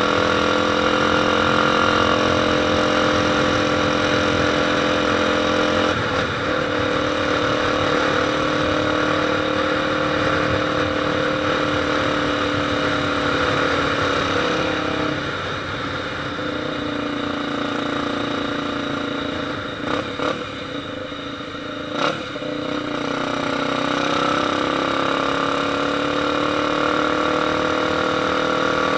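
Motorcycle engine running steadily at raised speed. Its pitch and level drop about halfway through, with two sharp cracks a couple of seconds apart, then it climbs back up.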